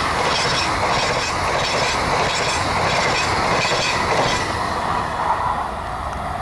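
Amtrak passenger coaches passing at high speed, a loud, steady rush of steel wheels on rail that eases slightly near the end as the train draws away.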